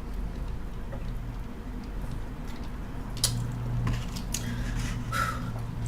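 Close-miked eating sounds of someone chewing ramen, with a few short wet clicks and smacks in the second half, over a steady low hum.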